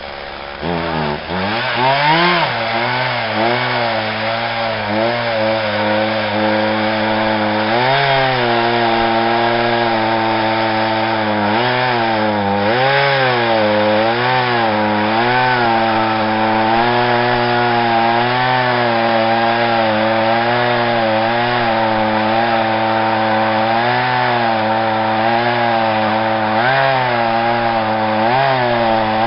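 Chainsaw carving into a standing tree trunk. Its engine revs up about two seconds in, then runs at high speed, the pitch sagging and recovering again and again as the chain bites into the wood.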